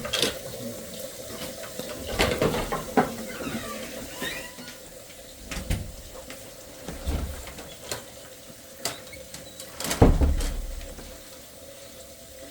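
Water running into a drain during sewer-pipe cleaning, with scattered knocks and low thumps; the loudest thump comes about ten seconds in.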